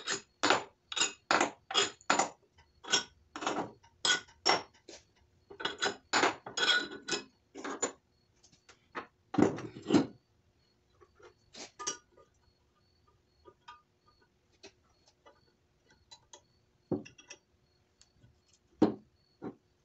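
Quick sharp knocks, two to three a second, as the bottom-end cradle of a Honda D16Y7 engine block is tapped and worked loose. The knocks stop about eight seconds in, two louder knocks follow, and then come scattered light metallic clinks as the cradle and bearing parts are handled.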